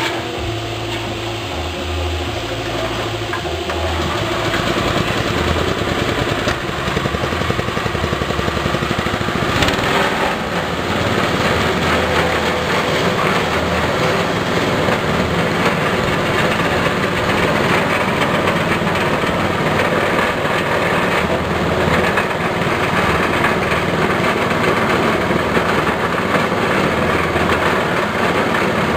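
Small petrol engine running steadily, driving a herbal grinding mill. It gets a little louder over the first few seconds, with an occasional brief knock.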